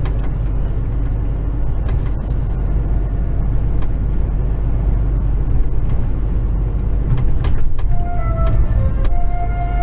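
Heavy truck's diesel engine running steadily as it drives along, a deep continuous rumble. Music fades in near the end.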